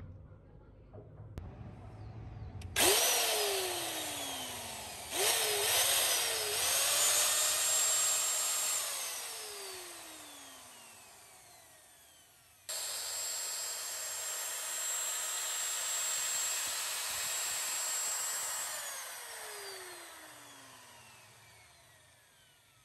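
Corded electric drill run up on its trigger three times, with a high motor whine. A short burst spins down at once; then a couple of quick trigger blips and a couple of seconds at full speed; then a steadier run of about six seconds. Each time the whine falls away as the motor coasts to a stop.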